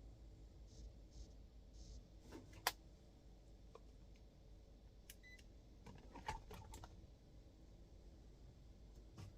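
Near silence broken by a few short clicks and taps: a sharp one about three seconds in, a small cluster a little after the middle, and one near the end.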